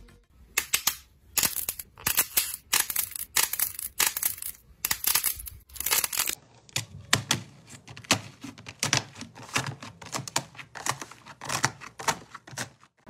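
Slime squeezed and torn by hand, crackling and tearing in quick, irregular bursts. About six and a half seconds in the texture changes, from layered rainbow slime pressed between the fingers to fluffy green slime with black sprinkles being kneaded and pulled apart.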